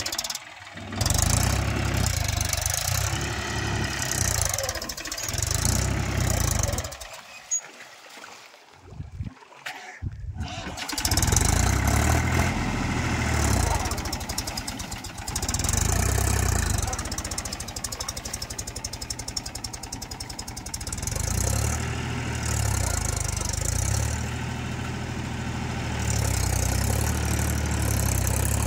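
Diesel tractor engine of a Sonalika 42 DI running hard on cage wheels stuck in deep paddy-field mud, with a second tractor, a Mahindra 415 DI, hitched up to tow it. The engine sound drops away for a few seconds about a third of the way in, then comes back strongly.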